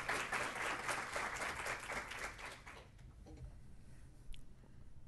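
Audience applauding, dying away about three seconds in; a faint click follows in the quiet room.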